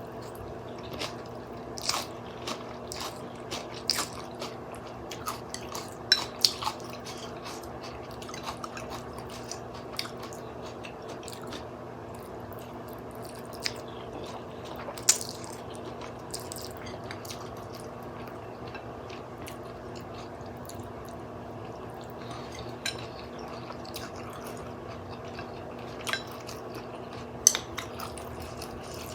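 Close-up eating sounds: wet chewing, biting and smacking of glass-noodle soup with fish balls, in irregular sharp clicks, thicker in the first half and again near the end, over a steady low hum.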